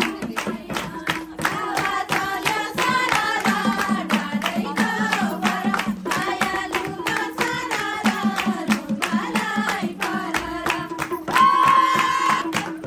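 Group singing of a Nepali bhailo folk song, with hand clapping and a hand drum keeping a quick, steady beat.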